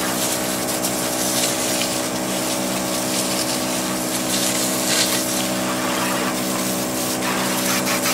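Sisun portable 12-volt pressure washer running: its electric pump hums on one steady tone while the spray jet hisses against caked mud on a pickup's wheel arch.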